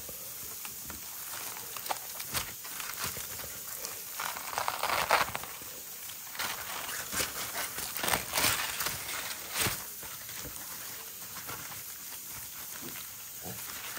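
Crumpled aluminium foil crinkling and crackling as hands pull a foil parcel open, in irregular spells, loudest about four to five seconds in and again around eight to ten seconds in.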